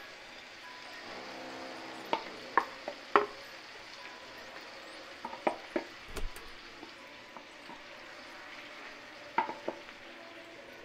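Hot oil sizzling steadily in a frying pan as marinated chicken pieces go in on top of fried onions, with sharp clinks and knocks in three clusters: about two to three seconds in, around five to six seconds in, and near the end.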